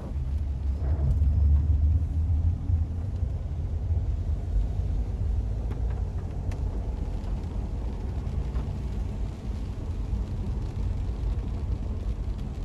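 Low rumble of a car driving, heard from inside the cabin. It is strongest for the first couple of seconds, then settles to a steady drone.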